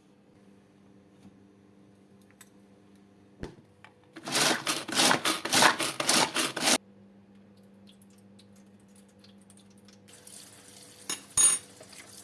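Kitchen dishes and utensils being handled: a single clink, then a loud run of quick rattling strokes lasting about two and a half seconds. Near the end, a softer hiss with two sharp clinks.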